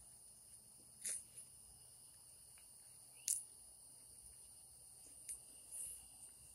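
Night insects, crickets, trilling steadily in several high, even tones. A few brief sharp clicks break through about a second in, near the three-second mark (the loudest), and twice more just after five seconds.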